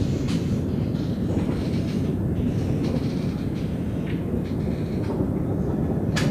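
Thunder rolling in a continuous low rumble during constant cloud-to-cloud lightning, with a few sharp clicks over it, one near the end.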